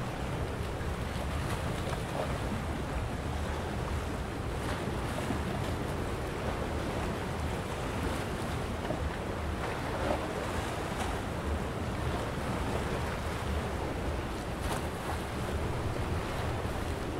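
Calm sea washing and lapping against rocks, a steady wash with small splashes now and then, with a low rumble of wind on the microphone beneath.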